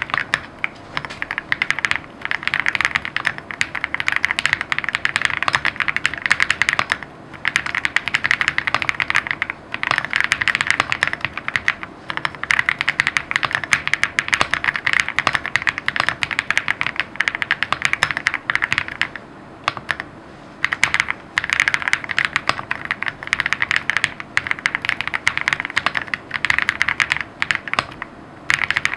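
Typing on a Lucky65 v2 custom mechanical keyboard with lubed Kang White v3 switches: steady runs of quick keystrokes broken by short pauses, the longest about two-thirds of the way through.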